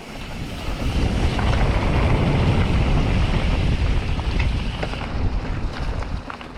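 Wind rushing over the microphone while riding a mountain bike at speed: a low, even roar that builds about a second in and eases off near the end, with a few sharp knocks.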